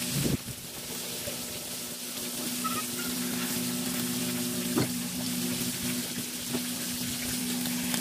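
Scallops in the shell deep-frying in hot oil in a wok, a steady sizzle, with metal tongs knocking against the pan a few times as the scallops are turned and lifted out. A steady low hum runs underneath.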